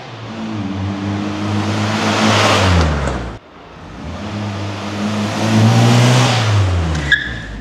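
The slightly tuned 998cc A-series four-cylinder engine and exhaust of a 1969 Morris Mini Cooper Mk2, driven up close twice. Each time it grows louder as it nears and the engine note falls away, and the first pass cuts off suddenly about three seconds in. Near the end comes a brief sharp squeak, and the engine then settles to a quieter low run.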